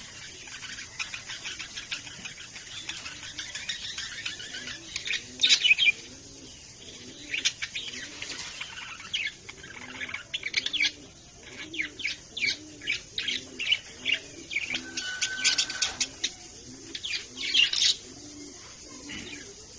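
Pet budgerigars chirping and warbling in many short, sharp calls, with the loudest bursts about five seconds in and near the end. A low, evenly repeated note runs underneath.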